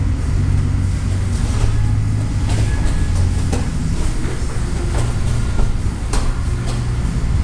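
A steady low rumble, with a few sharp thumps and slaps scattered through it as two grapplers in gis scuffle on foam mats.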